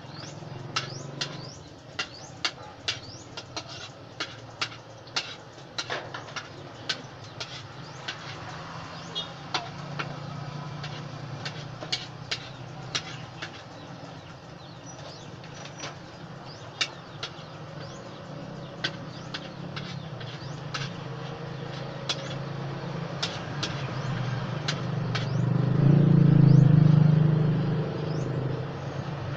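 A metal utensil clicking and tapping against a wok in sharp single strikes, about one or two a second at first and fewer later on. Underneath, a low engine rumble grows and is loudest about 26 seconds in.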